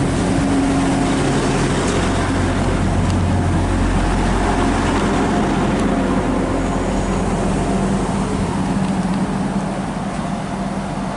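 A Class 175 diesel multiple unit idling at the platform, a steady low engine hum, over constant road traffic noise.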